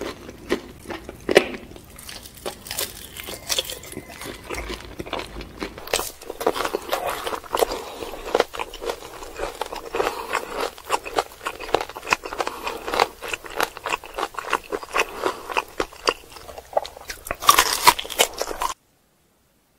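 Close-miked eating: crunchy bites and wet chewing of crispy fried chicken, a dense run of sharp crackles and clicks. The sound stops abruptly near the end.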